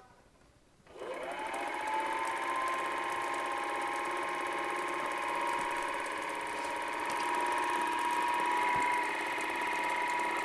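Majestic NSI 36 dual 8 film projector switched on about a second in: the motor spins up with a rising whine, then runs steadily with a high whine and a fast, even mechanical chatter of the film transport.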